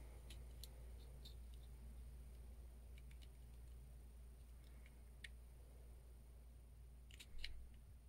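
Faint, scattered ticks and scratches of a digital caliper's jaw tip scribing a marking line on a metal ignition lock cylinder, with a short, louder scrape about seven seconds in.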